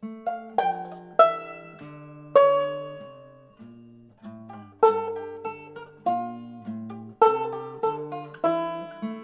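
Instrumental music: picked string notes, each struck sharply and ringing away, over a slower line of low notes.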